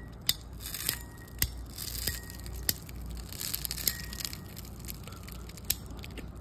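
Handheld golf ball cutter crunching through an old liquid-center balata golf ball, with irregular sharp cracks as the ball splits open.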